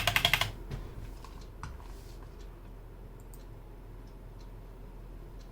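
Fast typing on a Skyloong SK61 keyboard with Gateron optical switches, a quick even run of keystrokes that stops about half a second in. After it come only a few faint, scattered key clicks.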